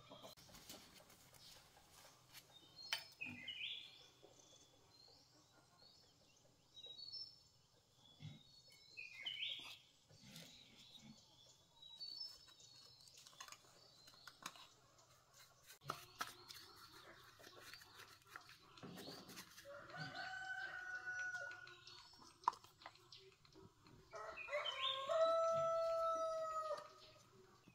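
A rooster crowing: one long, steady crow near the end, the loudest sound, with a shorter call a few seconds before it. Small birds chirp now and then, among scattered light clicks and knocks.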